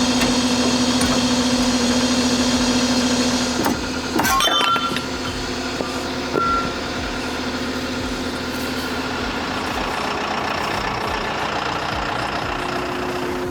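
Skid steer engine running steadily; about four seconds in its note changes and gets quieter, with a few sharp metallic clanks just after.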